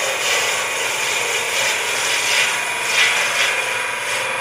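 A 3/4-inch spindle gouge cutting a wooden pen blank spinning on a wood lathe at about 1300 RPM, rounding it down: a continuous rasping hiss of wood being shaved, swelling and easing as the cut moves along the blank.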